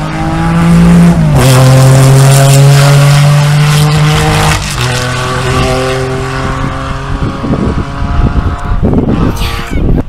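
Historic rally car's engine running loud at high revs, its pitch dropping sharply about a second in and again about four and a half seconds in. A brief rush of noise near the end.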